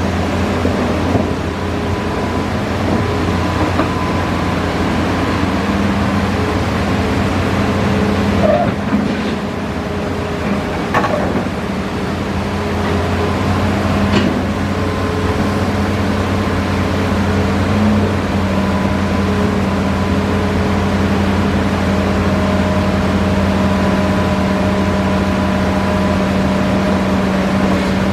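Diesel engine of a Hitachi Zaxis 5G hydraulic excavator running steadily with a constant low hum, with a couple of faint clicks near the middle.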